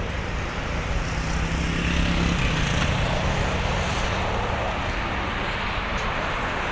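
Boeing 767-300ER's jet engines running as a steady roar, with a low hum that drops in pitch about two seconds in, the roar strongest around then.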